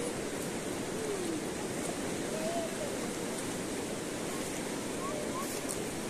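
Steady rushing of a full, fast-flowing river.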